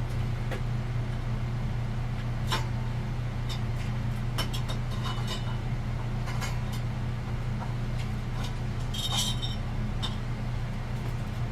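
Scattered light clinks and taps of small metal fan parts and hardware being handled during ceiling fan assembly, over a steady low hum.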